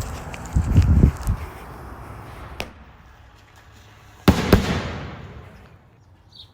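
Consumer fireworks going off: a cluster of low bursts in the first second or so, a single sharp crack midway, then a loud bang about four seconds in that echoes away.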